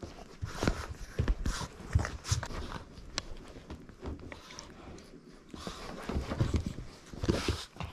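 A Boston terrier romping on a sofa and rug: paws scrabbling and thumping in irregular scuffles and knocks as it jumps about.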